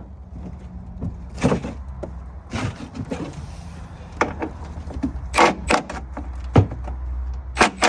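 Tools and bolts being handled against the truck's metal: a series of irregular clanks and scrapes, a few sharp knocks spread through the seconds, over a steady low hum.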